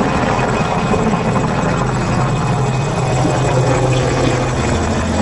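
Light turbine helicopter hovering close to the ground: a steady engine and rotor noise with a thin, high, steady whine. Its low hum drops slightly in pitch near the end.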